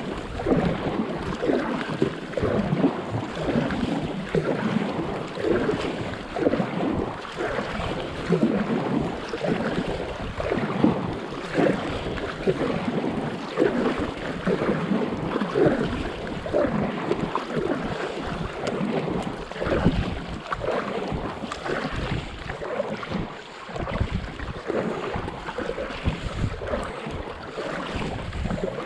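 Water splashing and lapping around a paddleboard as it is paddled, with irregular sloshes from the paddle strokes, under soft rain.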